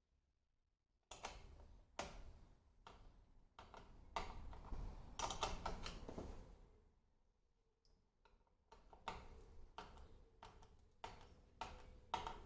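Faint clicking of a hand tool on the screen's bracket fixings as they are tightened. Single clicks at first, with some handling rustle in the middle, then a quicker run of about three clicks a second near the end.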